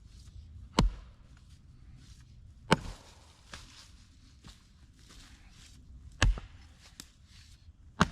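Axe blows splitting wood: four sharp, heavy strikes a second or more apart, with quieter knocks between.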